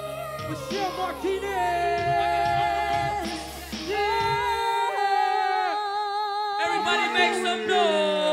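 Live music with singing: long, drawn-out sung notes with a wavering pitch over accompaniment. A steady low bass underneath stops about halfway through, leaving the voice and lighter backing.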